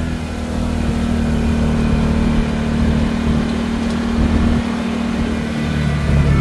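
Off-road vehicle engine running steadily under way, then picking up with a rise in pitch and loudness near the end.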